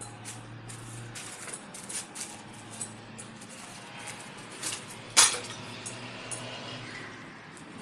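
Footsteps crunching and shuffling through scattered paper and debris, with irregular small clinks and knocks and one sharp clatter about five seconds in.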